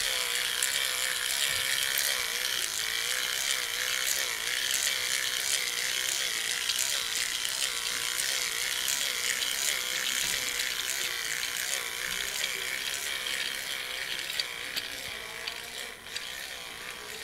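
Battery-powered toy train running on plastic track: a steady small electric motor whine with gear rattle and many small clicks from the wheels, a little fainter near the end.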